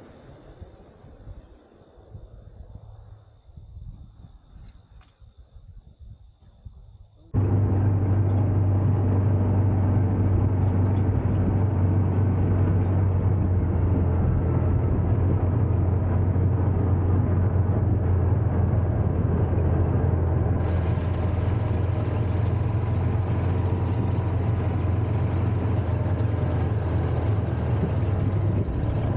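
Crickets chirping over faint outdoor noise, then from about seven seconds in a John Deere Gator utility vehicle's engine running steadily, heard close up as it drives across a grass field.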